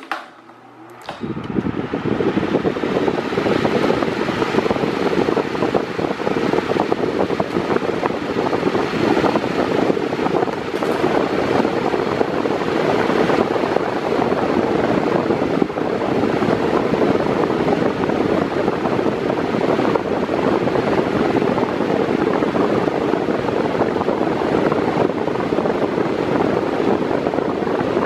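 Mondial Maxi Power 40 cm 140 W fan running on its medium speed, a steady rush of air and motor noise. It comes up about a second in and then holds even.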